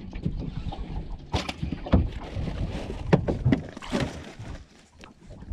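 Knocks, clatter and rustling of gear being handled on a fishing boat's deck: several separate sharp knocks over a noisy background, easing off near the end.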